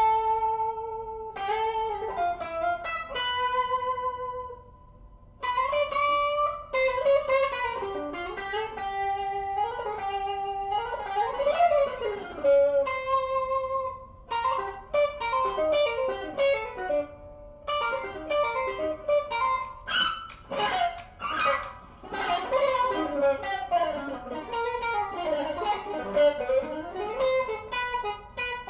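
Electric guitar played for a sound test: picked single-note melody lines and chords, notes ringing out, with two short pauses, one about five seconds in and one near the middle.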